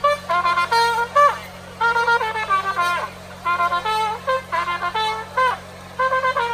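A wind instrument playing a melody in short phrases separated by brief pauses, with held notes that sometimes bend in pitch at their ends.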